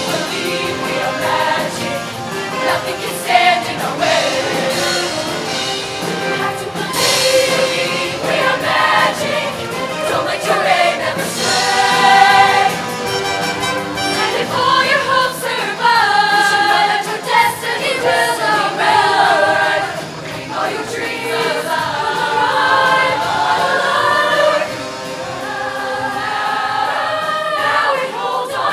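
A choir singing in harmony with instrumental backing and a few accented beats.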